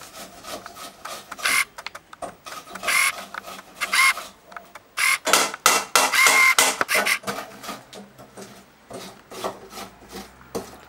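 Onion being grated on a metal hand grater over a small pot: irregular rasping strokes, most dense and loudest in the middle of the stretch.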